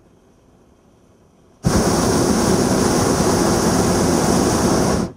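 Hot air balloon's propane burner firing in one blast: a loud, steady rushing that starts suddenly a little under two seconds in and shuts off abruptly about three and a half seconds later.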